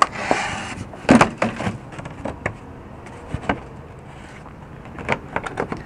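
Plastic engine undercover and fender liner being pushed and shifted into place by hand from under a car: a brief scraping rustle at the start, then scattered clicks and knocks of plastic, with a quick cluster of clicks near the end.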